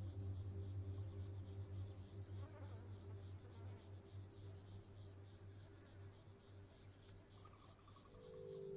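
Quiet ambient background music. Held low tones fade out over the first couple of seconds, leaving a faint high hiss with a light ticking texture. A new held chord of steady tones swells in near the end.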